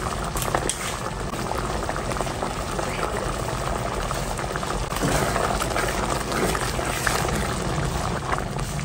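Creamy carbonara sauce simmering in a pot, bubbling and popping steadily.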